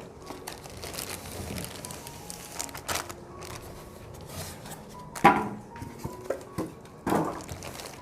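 Packaging rustling and bumping as a subwoofer is handled out of its box, with a few sharp knocks, the loudest about five seconds in. Faint background music underneath.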